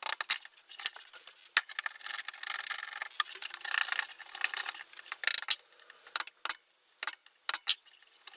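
Hand chisel paring and scraping wood fibres out of a shallow mortise, pushed by hand rather than struck: a run of dry scraping strokes with small clicks, thinning to a few scattered clicks in the last couple of seconds.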